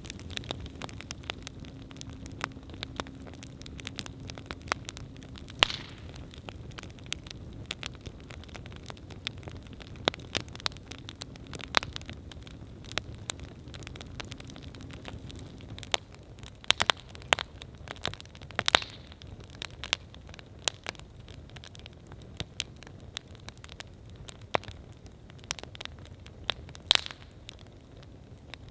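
Wood campfire burning, with irregular crackles and sharp pops over a steady low rush of flame; a few louder pops stand out, about six, eleven, nineteen and twenty-seven seconds in.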